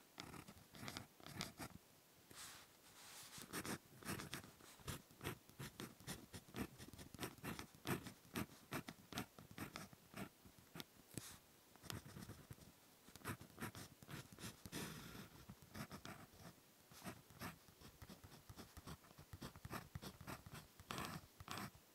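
Ballpoint pen writing Japanese characters on paper, close-miked: a quick, irregular run of short scratching strokes and small taps, with brief pauses between words.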